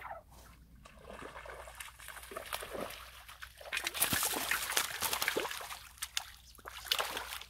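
A hooked fish thrashing and splashing at the water's surface among the reeds as it is played in on a fishing line, in irregular bursts of splashing that are heaviest in the middle and flare up once more near the end.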